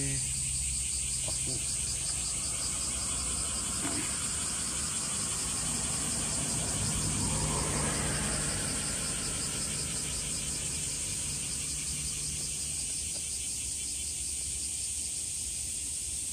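Insects chirping steadily in a rapid, even pulse over a constant high hum, with a soft whoosh that swells and fades about halfway through.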